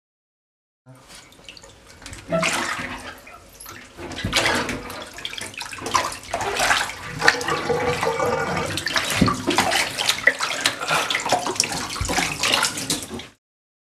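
Water splashing in a bathtub as a kitten is washed by hand. The sound starts about a second in and cuts off suddenly near the end.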